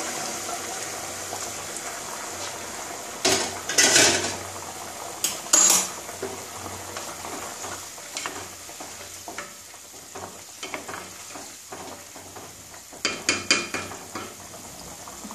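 Chicken and spices sizzling in a pot of freshly added hot water. A wooden spatula stirs, scraping and knocking against the pot in a few sharp clatters, about three to six seconds in and again near the end.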